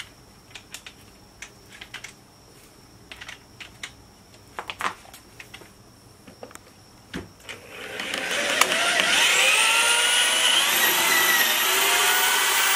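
A few scattered clicks and taps, then, about two-thirds of the way in, a corded electric drill starts up and runs loud and steady, its pitch climbing for a few seconds and then holding with small dips as it bores into the lock of a small steel fire safe.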